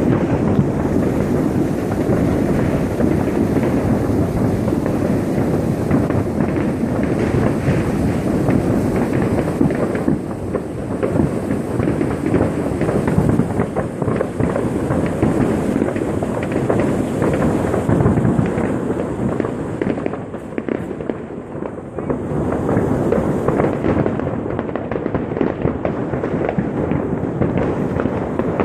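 Dense, continuous crackle and bangs of many fireworks and firecrackers going off at once across a city, overlapping into one unbroken din.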